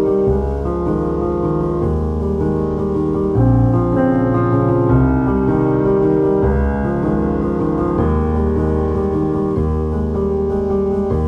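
Background music played on piano or electric piano, with a steady run of sustained chords and notes.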